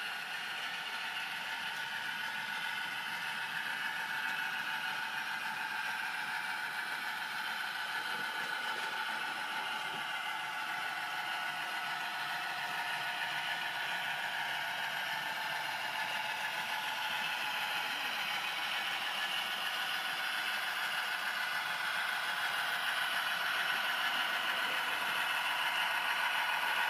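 Piko Hobby model locomotive running with a long train of freight wagons: a steady rattle of wheels over the track joints and a motor whir, slowly growing louder toward the end as the train comes closer.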